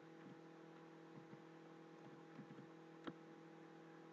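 Near silence: a faint steady hum, with one faint computer-key click about three seconds in.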